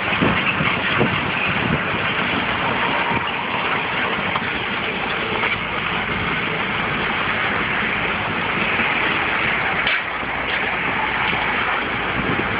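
Steady noise of heavy vehicles running, such as the wheel loader clearing the derailment, with a couple of short knocks about ten seconds in.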